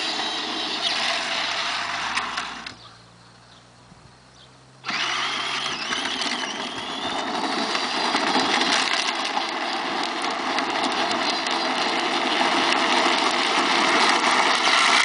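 Peg Perego battery-powered ride-on jeep driving along a road, its electric motors and gearboxes whining and its plastic wheels rattling over the rough surface. The sound drops away for about two seconds a little under three seconds in, then comes back suddenly.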